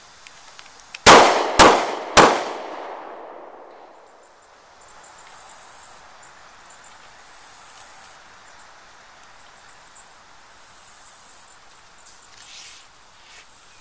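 Walther PPS 9mm pistol fired three times in quick succession, about half a second apart, each shot ringing with an echo that dies away over a second or two after the last. The three shots are a failure drill: two to the body, then one to the head.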